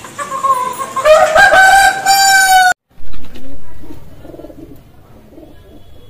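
A rooster crows loudly: one long call that rises, then holds its pitch, and is cut off abruptly about three seconds in. A brief low thump follows, then soft, low pigeon cooing.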